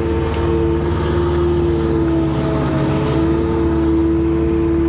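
Wheeled excavator's diesel engine running at a steady speed with a constant hum, while the machine works its boom.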